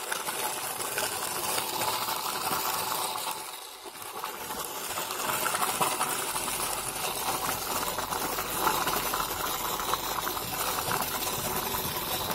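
Plastic toy dump truck loaded with soil being pushed by hand over dirt ground, its plastic wheels rolling and grinding on the grit in a steady gritty rattle, with a short lull a little under four seconds in.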